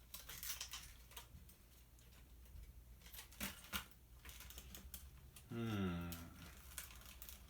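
Scattered small clicks and taps of plastic and metal parts being handled as a CD changer is taken apart by hand. A little past the middle, a brief voiced hum falls in pitch.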